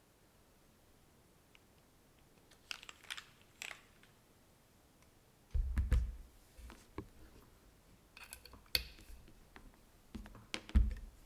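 Keystrokes on a gasket-mounted FLO-AT custom mechanical keyboard with an aluminium plate, Cera R3 switches and DCS keycaps. After a quiet start, a few scattered clusters of key clicks sound. Two deeper, louder thuds come about halfway through and near the end.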